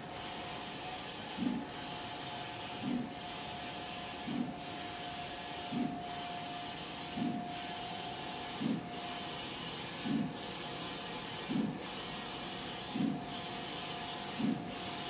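Audley large-format printer printing: the print carriage sweeps back and forth with a steady hissing whir over a constant whine, and a soft thump about every second and a half as the passes repeat.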